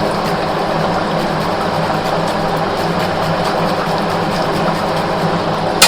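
Steady whirring of an electric fan running, with a faint low motor hum under it.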